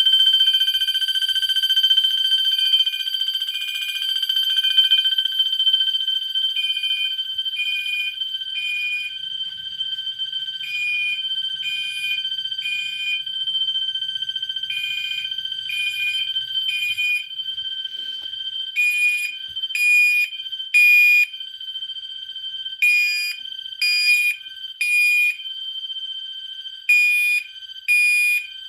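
Two fire alarms sound together. A Gentex Commander 3 horn gives 2400 Hz code-3 (temporal-three) beeps: three short beeps, then a pause, repeating, growing much louder partway through. Under it a Wheelock MT runs its bell tone as a steady high electronic tone.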